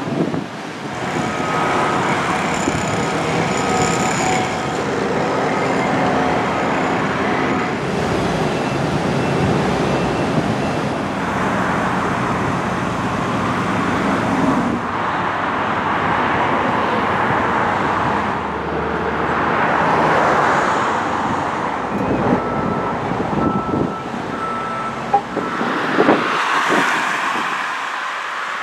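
Road traffic, with several vehicles passing one after another and their noise swelling and fading.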